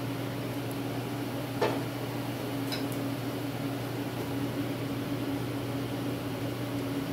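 Steady hum of a shop heater running, with one light click about a second and a half in and faint metallic ticks near three seconds.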